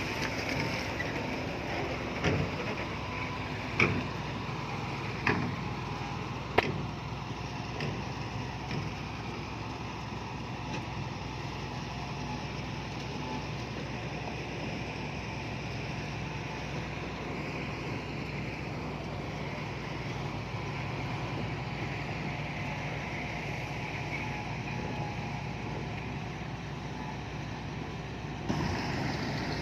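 Heavy earth-moving machinery's diesel engine running steadily, with four sharp knocks in the first seven seconds. The sound changes abruptly near the end.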